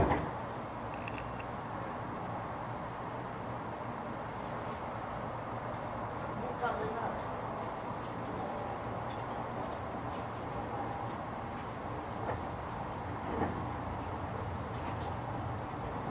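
Night-time outdoor ambience: a steady high-pitched insect-like trill over a low hum. A sharp knock comes right at the start, and a faint distant voice is heard about six and a half seconds in.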